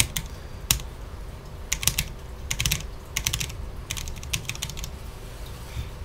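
Typing on a Cherry MX 10.0N mechanical keyboard with low-profile MX Speed switches: short bursts of several quick key clacks at a time, a pause between each burst.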